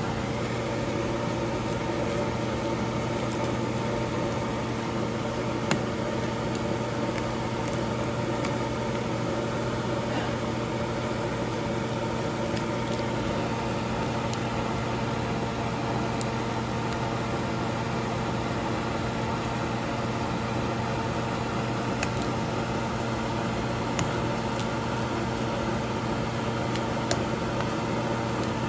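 An electric kitchen fan running with a steady whir and hum, with a few light clicks of a utensil against the stainless steel pot.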